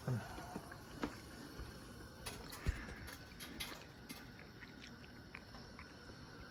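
Faint scattered clicks and light knocks of handling at the stove, with a dull thump just after the start and another about two and a half seconds in.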